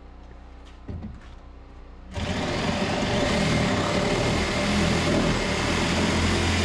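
A faint low hum, then about two seconds in a loud, steady engine-like mechanical running noise starts abruptly and carries on.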